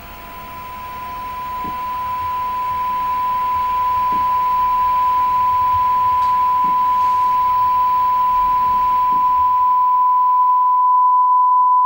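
Computer-generated 1000 Hz pure tone, one steady pitch, starting very faint and rising slowly in loudness over the first few seconds, then holding steady.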